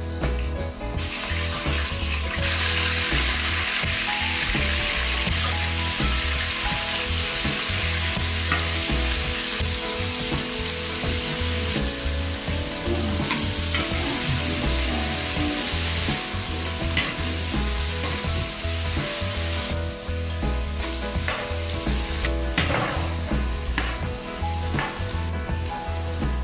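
Diced vegetables and cauliflower florets sizzling in hot oil in an aluminium pot, stirred with a metal spatula that scrapes and clicks against the pan now and then. The sizzle grows louder about two seconds in.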